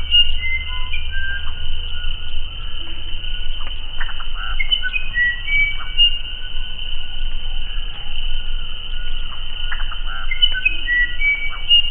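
Musician wren (uirapuru) singing: phrases of clear whistled notes jumping between pitches, mixed with short clicking notes, one phrase about every six seconds. A steady high insect buzz runs beneath.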